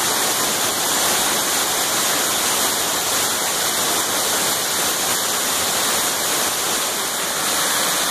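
Waterfall pouring down a few metres away, heard from the path behind the falling water: a steady, hissing rush of water and spray.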